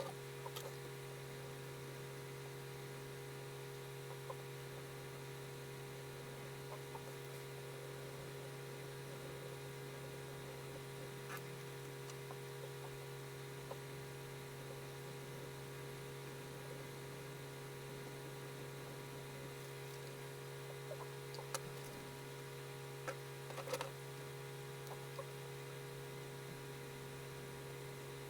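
Steady electrical mains hum, with faint scratching and a few light taps of a pencil on paper. The sharpest clicks come about 21 and 24 seconds in.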